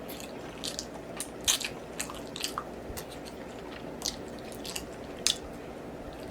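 Close-miked chewing and biting into baby back ribs, with irregular wet mouth clicks and smacks, the loudest about a second and a half in and again near the end.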